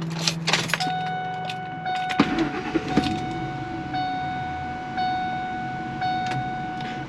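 Ford F-150's keys jangling at the ignition, then the truck's dashboard warning chime ringing steadily, re-struck about once a second, as the engine's hum dies away between restart attempts.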